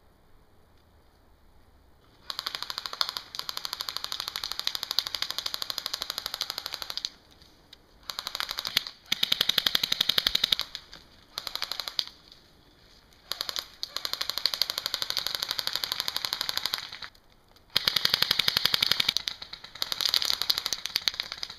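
Airsoft electric guns (AEGs) with metal gearboxes firing on full auto. Long bursts of rapid, evenly spaced shots start about two seconds in and are broken by short pauses.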